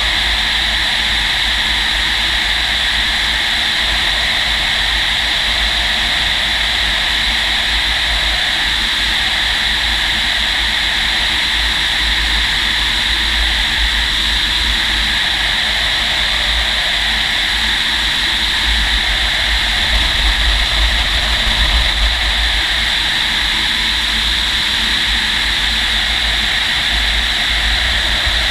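Steady rush of air past a Fox glider's canopy while it is towed aloft, a loud hiss with an uneven low rumble of wind buffeting that swells a little about two-thirds of the way through.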